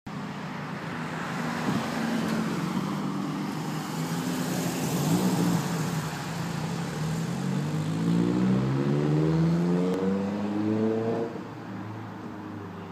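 Mitsubishi Lancer Evo IX's turbocharged four-cylinder engine being revved, its pitch climbing for several seconds before it drops off sharply near the end. The owner puts the engine's running down to a misfire on cylinder 3.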